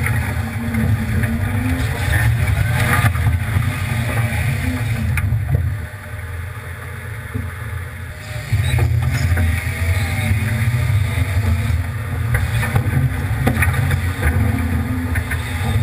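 Ford F-150 pickup's engine running at low speed as the truck drives through a shallow stream, with water splashing around it and occasional knocks. The engine note drops away a little before the middle, then comes back suddenly.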